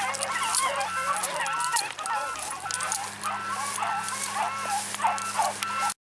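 Pack of beagles baying in chorus on a scent trail, many overlapping wavering cries. A steady electronic beep sounds about twice a second over a low machine hum, and everything cuts off abruptly near the end.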